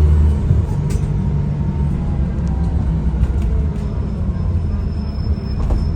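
Dennis Trident ALX400 double-decker bus's diesel engine running with a steady low rumble that eases slightly about half a second in. A faint high turbocharger whistle sits over it in the second half.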